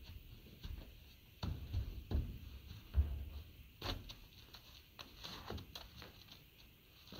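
A horse's hooves knocking and thudding on the trailer floor as she backs down out of a stock trailer, a handful of separate knocks with the loudest about three seconds in.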